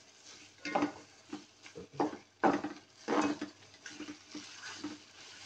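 A wooden spatula stirring and scraping chicken pieces in curry paste around a nonstick pot, in several irregular strokes.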